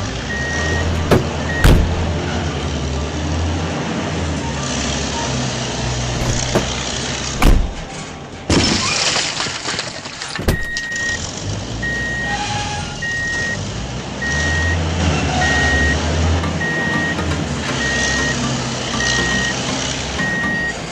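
A truck's reversing alarm beeping at an even pace over a low engine rumble, with a few sharp knocks and clatters. The beeping stops after the first second or two and starts again about ten seconds in.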